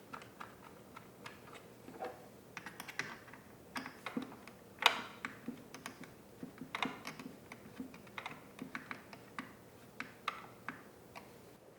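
Irregular clicks, taps and light knocks of plastic parts as the air filter and its cover are fitted back onto a Husqvarna 120 Mark II chainsaw, the loudest knock about five seconds in.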